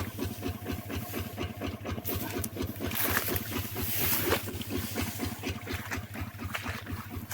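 A small engine running at a steady, slow chug of about six or seven beats a second.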